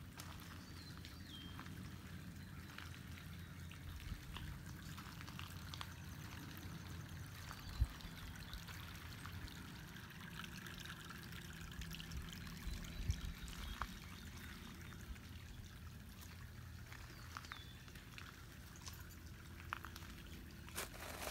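Steady pouring and trickling of water from a garden fish pond's water feature, with a single thump about eight seconds in.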